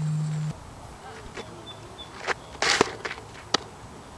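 A pitched softball smacking into a catcher's mitt on a dirt softball field: a few short, sharp knocks, the loudest a little past halfway through.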